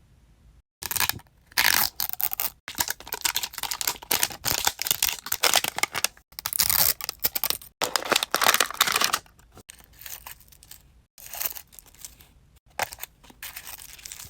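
Toy packaging being torn open and crinkled by hand: a dense run of tearing and rustling for most of the first two-thirds, then thinner, quieter rustles.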